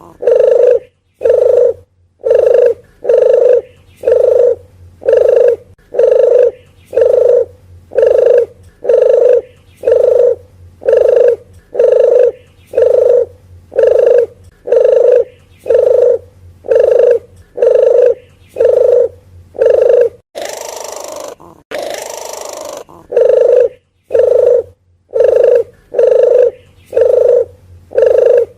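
Red turtle dove (deruk geni) cooing as a lure call: a low, short coo repeated steadily about once a second. Two brief bursts of hiss-like noise break the run a little after twenty seconds in.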